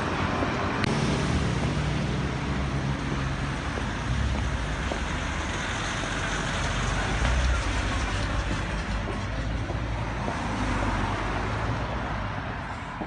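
Busy city street traffic: motor vehicles running past with a steady low engine rumble over a constant wash of road noise.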